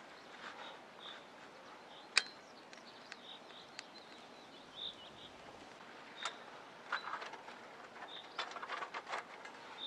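Twigs and small sticks clicking and snapping against the steel of a small camp wood stove as a gloved hand packs them into the firebox, with one sharp knock about two seconds in and a quick run of cracks near the end.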